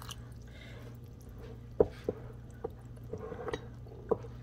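Warm water poured from a glass jar into a bowl of flour, then a spoon stirring the wet dough and knocking against the bowl several times, the loudest knock about two seconds in. A low steady hum runs underneath.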